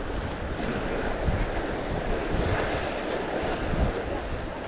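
Sea waves washing and splashing against the concrete blocks of a breakwater, with wind on the microphone.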